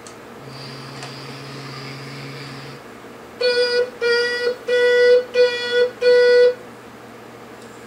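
Battery sound module of a Bruder toy vehicle: a low electronic hum, then a buzzy electronic horn honked about seven times in quick short bursts, some longer than others.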